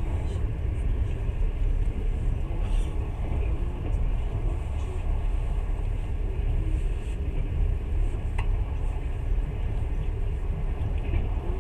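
Long-distance passenger train running, heard from inside the carriage: a steady low rumble of the wheels and running gear on the track, with a faint click about eight seconds in.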